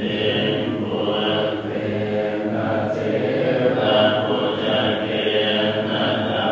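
Buddhist monks chanting sutras together: many low male voices in steady unison.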